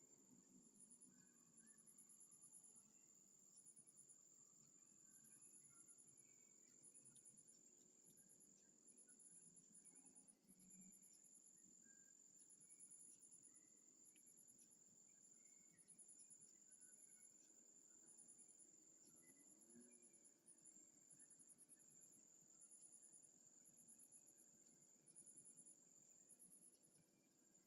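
Faint night insects, crickets, chirping: a steady high trill with short pulsed chirps above it repeating about once a second.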